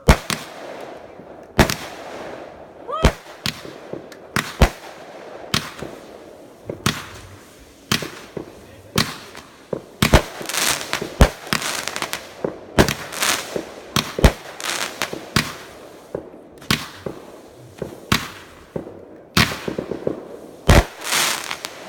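Backyard fireworks going off: a long irregular run of sharp bangs and booms, a few a second at the busiest, with crackling between them.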